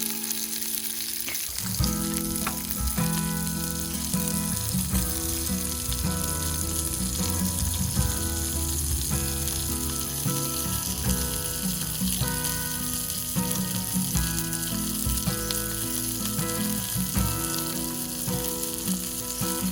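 Steak sizzling steadily as it fries, a dense crackling hiss with soft background music underneath.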